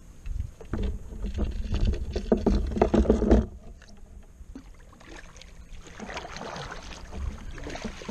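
Clatter and knocks of a fishing rod being set into a rod holder on a kayak, with low wind rumble. From about six seconds in, kayak paddle strokes splash in the water.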